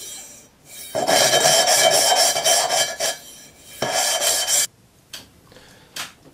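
Gritty rasping of an engine valve being spun back and forth on its seat with a lapping stick, with cutting paste between the valve face and the seat of a Land Rover cylinder head. It comes in two spells of rapid strokes, the first about a second in and the second shorter, near four seconds. The valve is being ground in to give a gas-tight seal.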